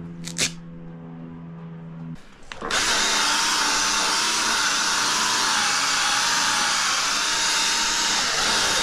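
A small cordless polisher with a red foam pad starts up about two and a half seconds in and runs steadily while buffing a freshly painted bumper: the fine-polish stage after wet-sanding with 3000 grit. Its motor whine wavers a little as the pad is worked over the paint.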